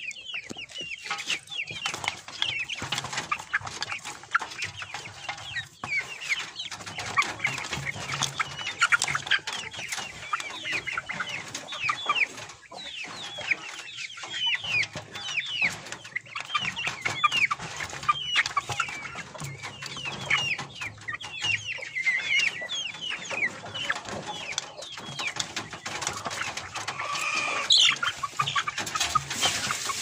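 A group of black chickens in a wire cage calling without a break: many short, high, falling peeps mixed with clucks.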